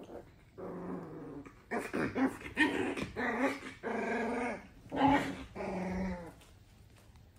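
Pitbull puppies growling and whining in a run of about eight short calls, one after another, stopping about a second before the end.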